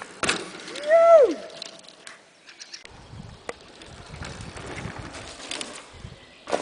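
A short, loud whooping shout about a second in, its pitch rising and then sliding down, followed by faint, uneven low noise.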